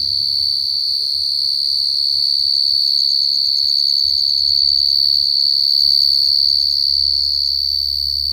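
Field cricket calling at very close range: a loud, continuous, high-pitched trill held on one note.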